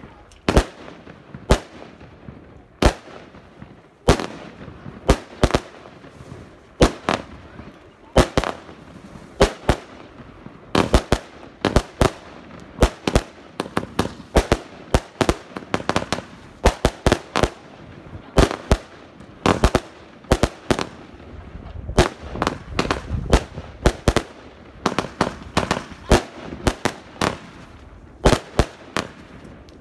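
'Imagination' firework battery from China Red/JFireworks firing shot after shot: sharp bangs from launches and bursting shells, several a second and unevenly spaced. A dense run of quick bangs comes about three-quarters of the way through.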